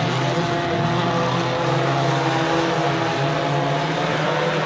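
Engines of several dirt-track race cars running around the oval: a steady drone of engine tones that rise and fall slightly in pitch.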